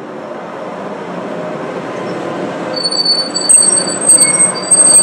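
Tram running along its rails, heard from inside the car. The rumble grows louder, and from about three seconds in the steel wheels squeal on the rails with a high-pitched tone, spiking loudly several times near the end.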